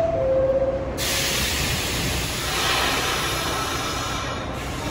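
New York City subway train standing in a station: the last note of its falling two-tone door chime, then about a second in a sudden loud hiss of air from the train that fades away over a few seconds, over a steady low rumble.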